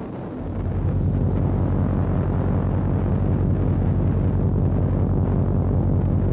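A loud, steady low droning rumble with a fast, even pulse, swelling up in about the first second. It sounds like an electronic sound effect for the spreading red tide.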